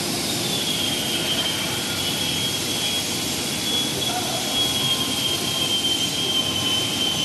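Bridge polishing machine's spinning polishing head grinding across a wet stone slab: a steady, even grinding hiss with a thin high whine held throughout.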